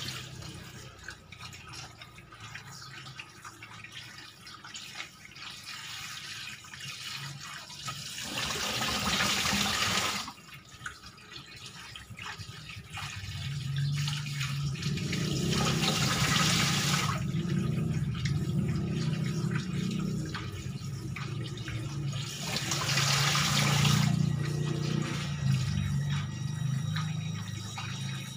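Water running from a tap into a sink, with three louder rushing spells of a couple of seconds each.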